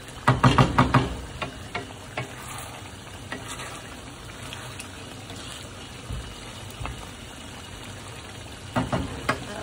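A pot of rice cooking with a steady sizzle. Several quick knocks of a utensil against the pot in the first second, and a few more near the end, as it is stirred.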